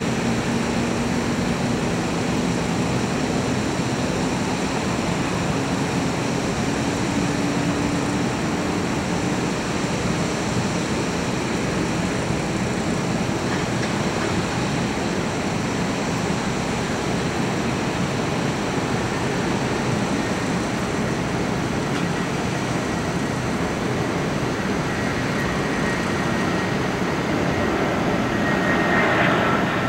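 Airbus A320 airliner's jet engines on final approach: a steady rushing jet noise with a faint low tone that slowly rises in pitch over the first ten seconds. Near the end a high whine comes in and the sound swells as the airliner passes close over the runway just before touchdown.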